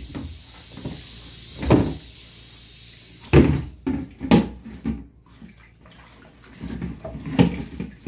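Kitchen tap running into a plastic basin of water while fish and shrimp are rinsed by hand, with splashes and knocks against the basin. The running water stops about three and a half seconds in, and the later sounds are hands sloshing the fish in the water with a few more splashes.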